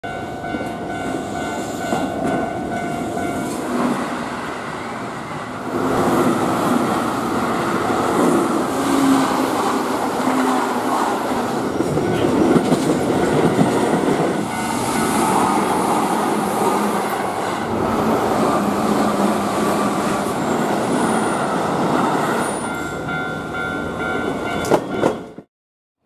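Japanese level-crossing warning bell ringing its steady electronic tones, then a Keihan electric commuter train passing through the crossing, its running noise covering the bell for most of the time. The bell is heard again near the end before the sound cuts off suddenly.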